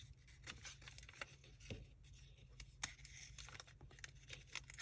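Faint rustling and light ticks of paper pages being folded and handled, with a few sharper taps.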